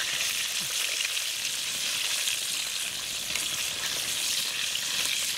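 Coated chicken pieces deep-frying in hot oil in a steel wok, a steady high sizzle, as a wire-mesh skimmer turns them in the oil.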